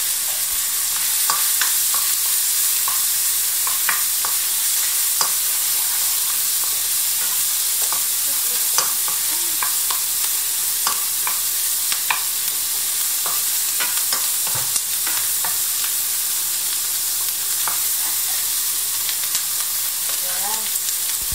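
Onions and garlic sautéing in oil in a frying pan: a steady sizzle, with a wooden spatula stirring and clicking against the pan now and then.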